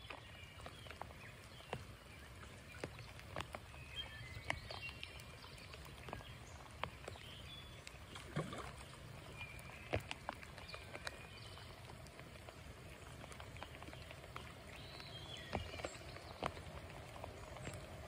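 Faint rain falling on a creek, with scattered raindrop ticks close by and birds chirping now and then in the background.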